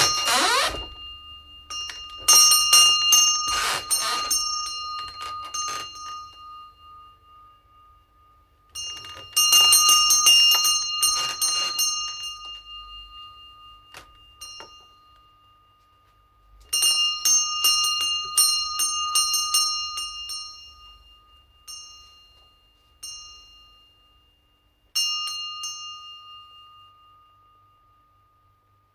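Shop-door bell jangling as a wooden door swings, in four bouts of rapid strikes that ring on and fade away. A short rising hinge squeak comes at the very start.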